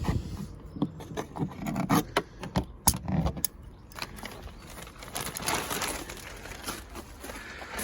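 Handling sounds of compost and its plastic sack: sharp knocks and scrapes for the first few seconds, then a softer rustle and crinkle.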